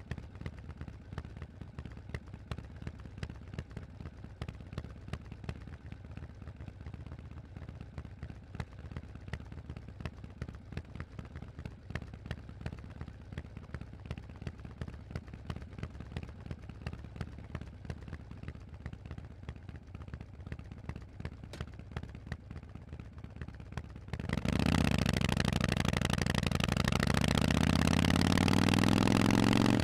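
Harley-Davidson Forty-Eight's air-cooled V-twin through a Vance & Hines exhaust, idling with an even pulsing beat. About 24 seconds in the throttle opens and the engine gets much louder, its pitch rising steadily as the bike accelerates.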